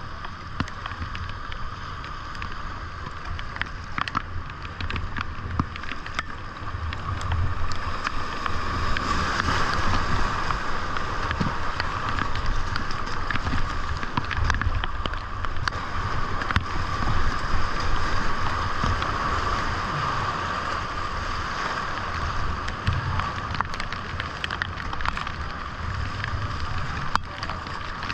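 Whitewater rapids rushing around a kayak at high water, with scattered splashes from paddle strokes and a low rumble of wind on the camera's microphone. The water grows louder through the middle as the kayak runs the rapid.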